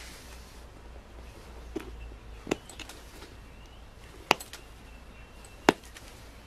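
Pressure flaking of a Bergerac flint arrowhead: flakes snap off the edge under a hand-held pressure flaker, four sharp clicks spaced a second or two apart, the two near the end loudest.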